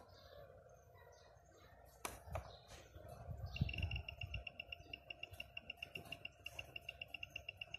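Jinbei MSN 800 studio flash beeping rapidly as its power dial is turned, short high beeps about six a second from a little after three seconds in. Before that, a few soft knocks of hands on the unit.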